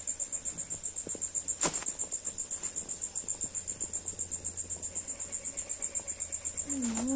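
Cricket chirping steadily, a high trill pulsing about ten times a second. A sharp click sounds about a second and a half in, and another near the end.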